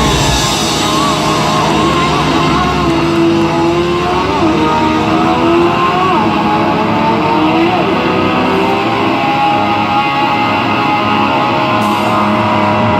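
Rock music: electric guitar playing sliding, bending notes over a full band backing.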